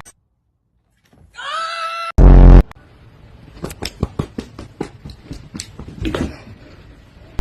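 A cat gives a short rising meow. A very loud, brief low blast follows, then a run of scuffling clicks and taps for several seconds.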